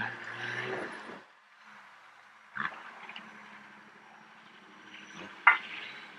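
Nissan Patrol GR off-road engine revving briefly, then running low and steady as the 4x4 comes back down a steep sand slope. Two sharp knocks break in, the louder one near the end.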